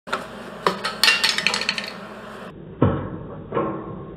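MIG welder crackling as it lays a bead on the steel axle tube of a Dana 60 front axle. About two and a half seconds in it cuts off, and two sharp metallic knocks follow.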